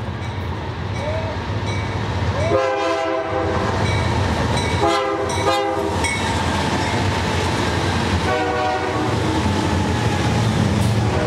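BNSF diesel freight locomotives passing at speed with a double-stack container train, the engines and wheels on the rails making a steady rumble that grows louder as the train arrives. The locomotive's air horn sounds a chord four times: one long blast a couple of seconds in, two shorter ones close together about five seconds in, and another about eight seconds in.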